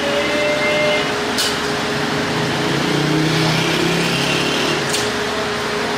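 Street noise with a small engine running steadily, a little louder about halfway through, and two short clicks.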